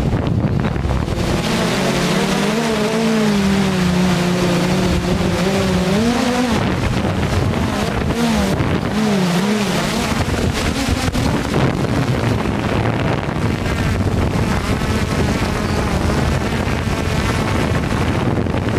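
Hubsan X4 Pro quadcopter's motors and propellers whirring, heard through the drone's own onboard camera, with wind rushing on its microphone. The motor pitch rises and falls with the throttle, most in the first half.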